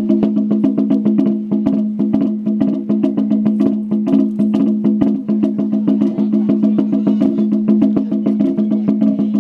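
Shime-daiko, a small rope-tensioned Japanese drum, beaten with wooden sticks in a fast, even beat of about six strokes a second. Each crack is sharp, and the tight drumhead rings at a steady pitch throughout.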